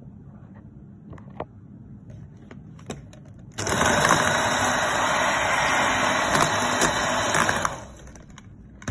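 Electric hand mixer switched on about a third of the way in, its motor running steadily for about four seconds as the beaters whip egg whites and sugar, then switched off near the end. A few light clicks come before it starts.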